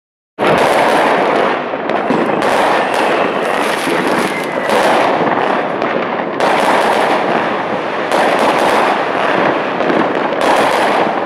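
Many fireworks going off at once, a dense din of crackling and bangs with no break. It starts suddenly about half a second in.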